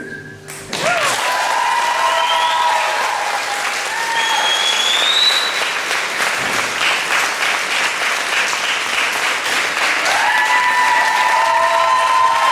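Audience applauding after a small acoustic band's song ends. The music cuts off about half a second in, then steady clapping follows, with a few voices calling out over it.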